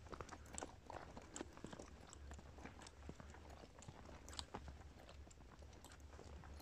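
Near silence: faint, irregular crackles and clicks scattered over a low, steady rumble.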